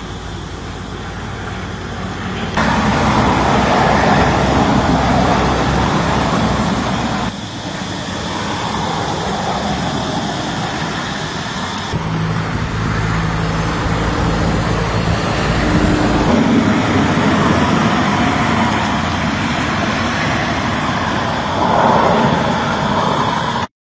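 Steady car engine and road noise that changes abruptly every few seconds where the footage is cut. Near the end it is heard from inside a car moving along a dirt road.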